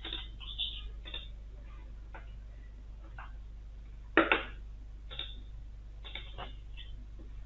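Small clicks and taps, several falling about once a second, with two louder knocks close together about four seconds in, over a steady low hum.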